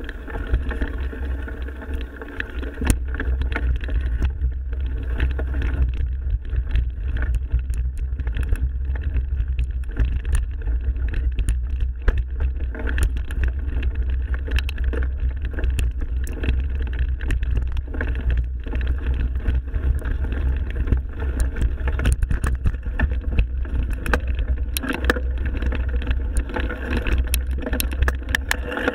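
Mountain bike riding over a forest trail, heard from a bike- or helmet-mounted action camera: a constant low rumble of wind on the microphone and tyres on the ground, with frequent short clicks and rattles from the bike.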